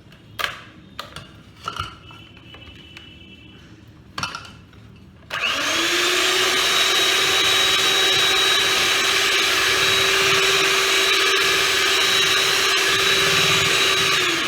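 Small electric kitchen mixer whirring at a steady pitch, blending the melted butter, oil and egg. It spins up with a brief rising whine about five seconds in, runs steadily for about nine seconds, then stops. A few light clicks and knocks come before it starts.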